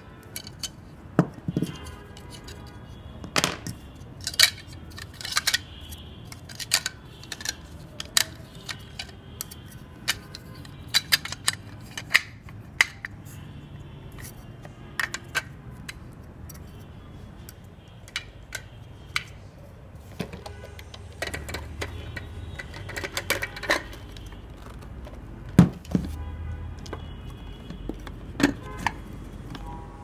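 Irregular plastic clicks and knocks as the dust cup and cyclone filter of a Total TVCH14111 cordless stick vacuum are handled and taken apart. The loudest knock comes about 26 seconds in.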